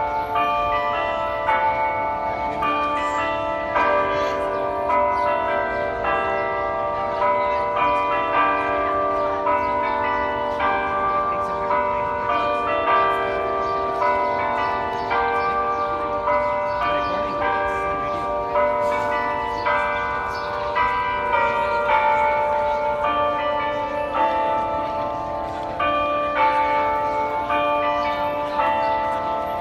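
The Delacorte Clock's carillon bells playing a tune as part of the clock's hourly chime. The struck notes follow one another several times a second and keep ringing into each other.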